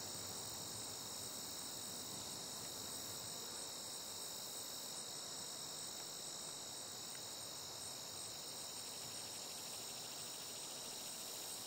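Steady, high-pitched chorus of insects trilling without a break.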